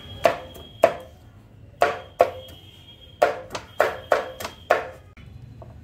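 Cleaver chopping green beans on a wooden chopping board: about nine sharp knocks, in uneven clusters of one to three strokes.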